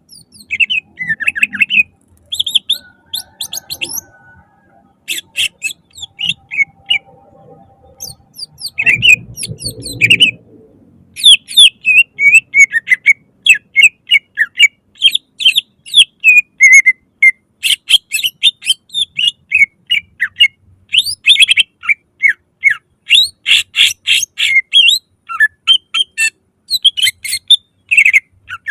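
Cucak ijo (green leafbird) singing a loud, fast song of short, sharp chirps and quick glides, given in dense runs. There is a brief low rumbling noise about nine seconds in.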